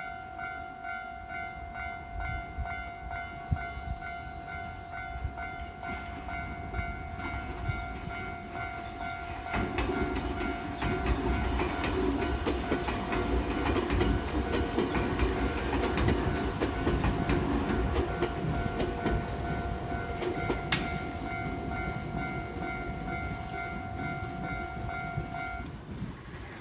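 Japanese railway level-crossing alarm ringing its repeating electronic tone while a train passes over the crossing, its rumble and wheel clatter louder from about ten seconds in. The alarm stops shortly before the end as the train clears.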